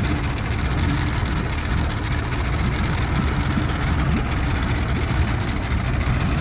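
1968 Mercury Merc 1000 100 hp inline-six two-stroke outboard idling steadily in neutral, with an even low pulsing exhaust note.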